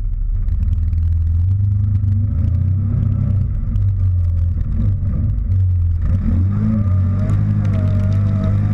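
CFMoto Gladiator X8 ATV's V-twin engine driving off and accelerating, heard close from a camera mounted on the machine, its pitch shifting about six seconds in. Light clatter from the chassis over the ground.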